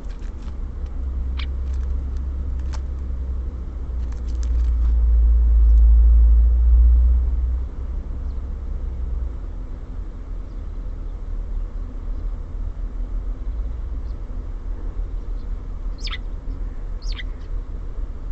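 A low rumble throughout, swelling over a few seconds and dropping back sharply about eight seconds in. Over it come a few short, sharp small-songbird calls from the feeder, two early on and two close together near the end.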